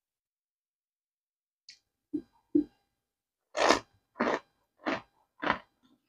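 A person chewing chunks of cornstarch. After a short quiet, a faint click and two soft knocks come about two seconds in, then four crisp crunches about half a second apart.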